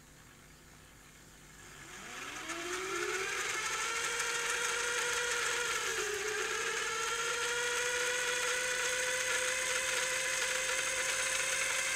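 Panasonic NV-HS1000 S-VHS video recorder's tape deck rewinding a cassette: about two seconds in a motor whine rises in pitch, then runs steadily with a slight dip about halfway. The mechanism is working again after repair.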